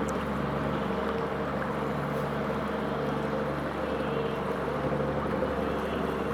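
A boat's engine running steadily: a constant low hum with a few steady tones, under a haze of wind and water noise.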